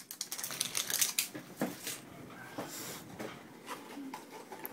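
Boxes and packaging being handled and set down on a glass tabletop: rustling with light knocks and taps, busiest in the first two seconds and sparser after.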